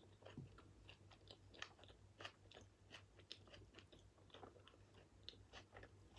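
Faint, close-up chewing of a burger: soft wet mouth clicks and small crunches at an uneven pace, over a steady low hum.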